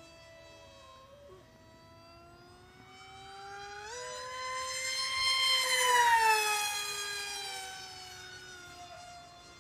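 Small RC delta jet's 2450kv brushless outrunner and 5.5x4.5 pusher propeller whining in flight. About four seconds in the pitch steps up under more throttle, the whine swells to a loud high-speed pass around six seconds, then drops in pitch and fades as the plane flies away.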